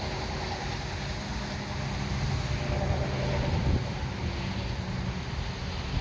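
Wind buffeting the microphone outdoors, a steady low rumble with a faint steady hum beneath it.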